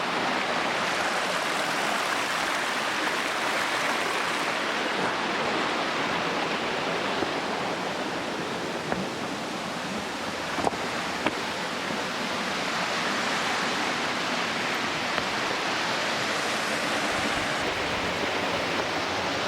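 Steady rush of a waterfall and stream, with a couple of brief knocks about halfway through.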